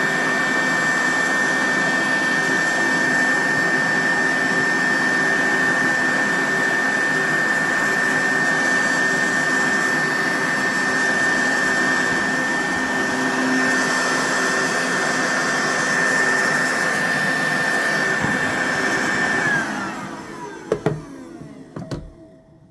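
A Dirt Devil Handimate cordless handheld vacuum runs with a steady high whine over a rushing-air noise. About twenty seconds in it is switched off and its motor winds down with a falling pitch, followed by a couple of sharp clicks.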